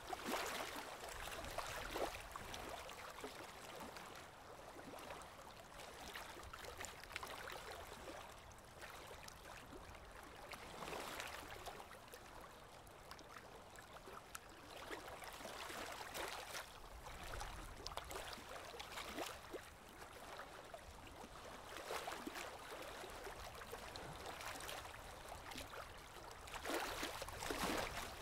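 Water washing with a steady hiss that swells and fades every few seconds.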